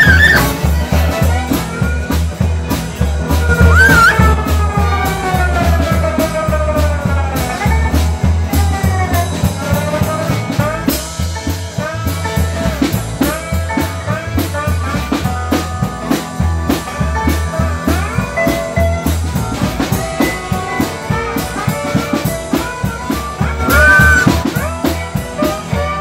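Live blues band playing: harmonica with long bending notes over guitar, a steady bass line and drums.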